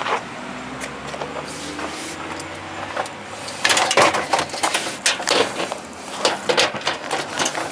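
Cutters snipping through a refrigerator's aluminum evaporator tubing and fins: a run of sharp clicks and snaps from about halfway in, after a stretch of steady low background noise.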